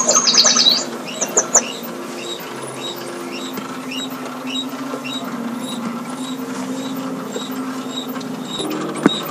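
Sound effects and mechanisms of an animated nativity scene: a burst of high, squeaky chirps in the first second and a half, then a steady run of faint high ticks, a few a second, over a low steady hum, with a sharp click near the end.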